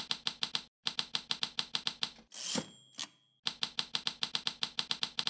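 Typewriter keys clacking in a quick even run, about seven strokes a second. About two and a half seconds in, the typing breaks for a bell ding and the sliding rush of the carriage return, then the keystrokes resume.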